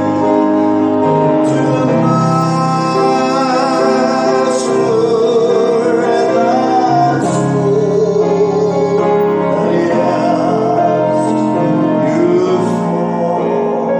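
A man singing a slow gospel hymn with vibrato, accompanying himself on piano.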